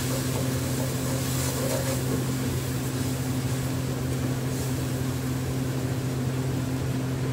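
A steady low machine hum, with the faint scrape of a wooden spoon stirring onion masala in a steel pot.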